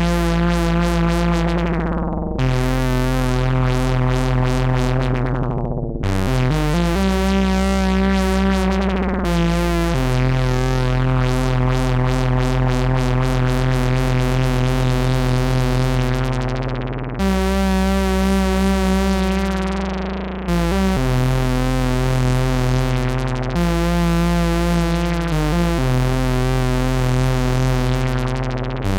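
Behringer 2600 analog synthesizer playing sustained, bright bass notes, the pitch changing every few seconds, with the filter sweeping down to darken the tone before some of the changes.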